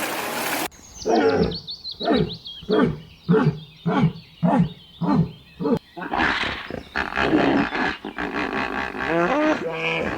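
An animal calling: a run of about nine short calls, each falling in pitch, about two a second, then a series of more varied pitched calls.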